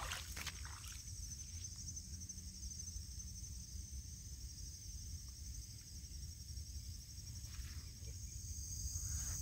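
Steady high-pitched trilling of an insect chorus, with a low steady rumble underneath and a few faint light knocks in the first second.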